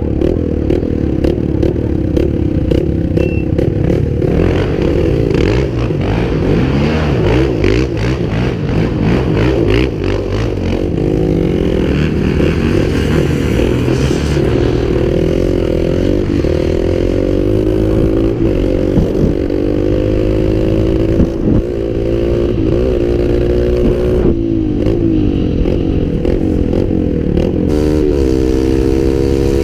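Off-road vehicle engine running under way. Its pitch climbs as it accelerates about halfway through and again near the end, with many short knocks and rattles in the first half.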